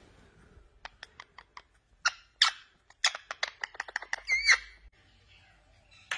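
Indian ringneck parakeets calling: a few soft clicks, then sharp high chirps and squawks that come fast for a second or so, ending in a wavering squeak.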